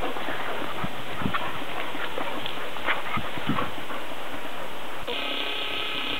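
Dogs playing in a yard: scattered small scuffles and clicks over a steady hiss. A steady high tone starts about five seconds in and cuts off abruptly.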